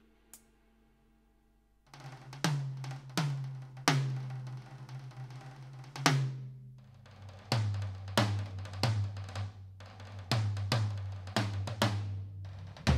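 Roland TD-17KVX V-Drums electronic drum kit being played. After a short pause, a run of drum strikes starts about two seconds in, each leaving a low ringing tone, and the ringing drops to a deeper pitch past the middle.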